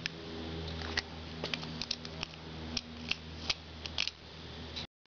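Irregular small metallic clicks and ticks from a gudgeon-pin circlip being worked around its groove in a piston by hand, over a steady low hum. The sound cuts off suddenly near the end.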